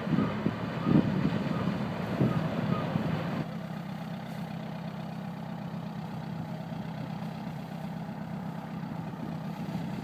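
Farm tractor engine running with a steady low hum. For the first three seconds or so, louder uneven noise lies over it, then drops off abruptly, leaving only the even engine sound.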